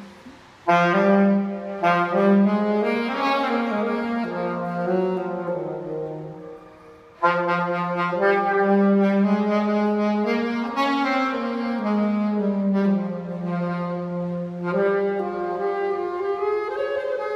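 A beginner playing a saxophone in two phrases of held notes that step up and down in pitch. The first phrase fades out about six seconds in, and the second starts suddenly a second later. The notes ring in a bare concrete parking garage.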